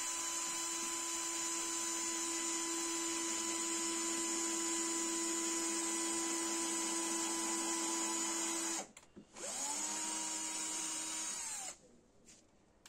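Electric drill boring holes in wood: it runs steadily for about nine seconds, stops briefly, then spins up again with a rising whine for about two seconds before cutting off.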